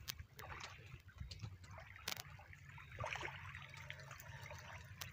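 Faint water trickling and lapping at a rocky riverbank, with a low steady hum underneath and scattered small clicks, the sharpest about two seconds in.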